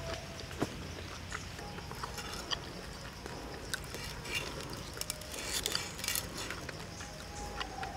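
Eating and cutting grilled pig head: chewing on crisp roasted skin, then a large cleaver slicing the meat, heard as scattered small clicks and crackles over a steady background.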